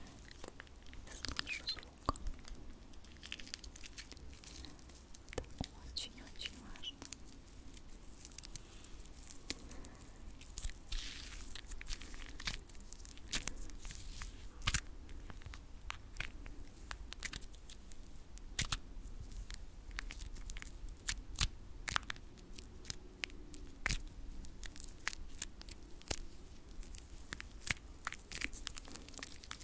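Hands rubbed and pressed together for ASMR, giving dense irregular clicks and crackles with a few short rustling stretches.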